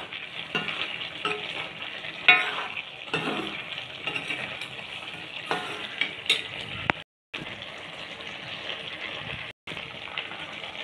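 Fish and vegetable curry sizzling in a black pan while a spoon stirs it, with scattered scrapes and knocks of the spoon against the pan. The sound cuts out briefly twice in the second half.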